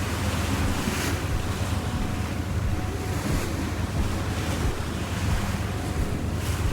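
Wind buffeting the microphone on the deck of a moving cruise boat, over a steady low drone from the boat and rushing water, with stronger gusts about a second in and near the end.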